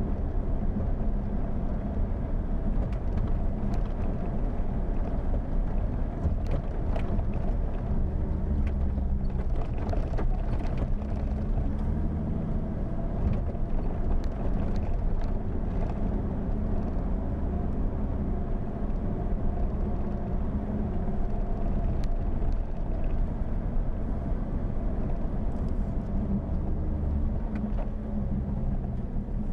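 Jeep Wrangler engine running steadily as it drives, with scattered clicks, knocks and rattles over the rough road.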